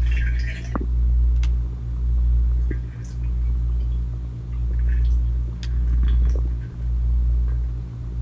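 Muffled low rumble and hum of water heard through an underwater camera's waterproof housing, swelling and fading about once a second, with a few faint clicks.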